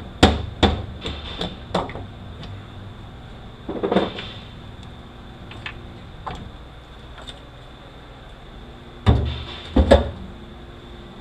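Metal transmission parts clunking and knocking as they are handled during teardown of a U760E automatic transmission: a quick run of knocks at the start, a short cluster about four seconds in, and two louder clunks near the end.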